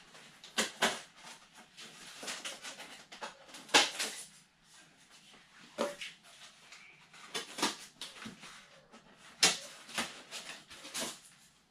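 Foam packaging of a model-aircraft box being handled and lifted out: irregular rubbing, rustling and light knocks of foam pieces, the loudest knocks about 4 and 9.5 seconds in.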